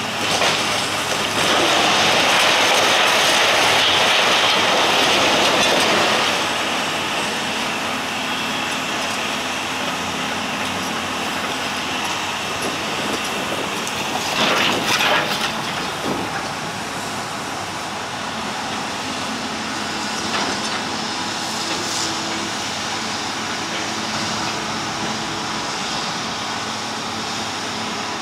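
Kobelco long-reach demolition excavator running while it tears down brick masonry: a loud rush of rubble crashing and sliding for several seconds near the start, and a cluster of knocks of falling brick about halfway through, over the steady engine.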